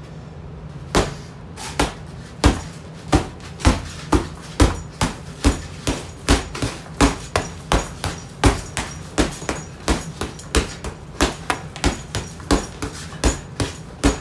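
Gloved punches landing on a leather heavy bag that lies on the floor: a fast, steady run of thuds, about two to three a second, starting about a second in.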